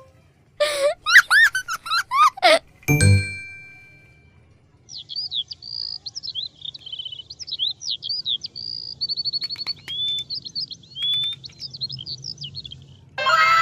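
A string of cartoon-style sound effects: quick whistling sweeps up and down, a single ding that rings on for about a second, then several seconds of birds chirping and tweeting, and a cluster of falling tones near the end.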